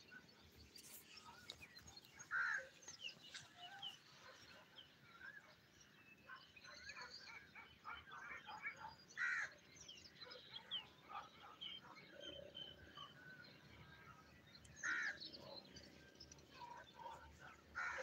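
Birds calling in farmland trees: a few louder calls stand out about every few seconds over many faint chirps.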